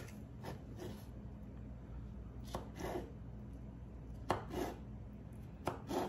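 Chef's knife cutting through asparagus spears and tapping a wooden cutting board: crisp strokes, mostly in close pairs, a second or two apart.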